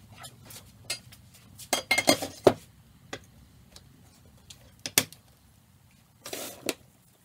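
Metal clicks and clinks as the rods and clamps of a dial indicator stand, with a camera mounted on it, are handled and adjusted. The loudest cluster of clacks comes about two seconds in, a single sharp click near five seconds, and a short scraping rustle near the end.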